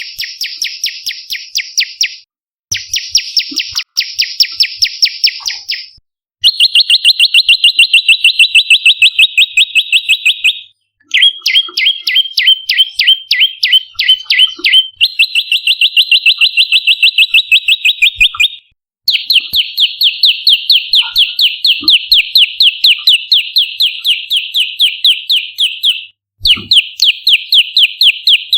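Prenjak lumut (tailorbird) calling in rapid, even trills of sharp repeated notes, about seven or eight a second. The trills come in bouts several seconds long with brief pauses between, each bout on a slightly different pitch.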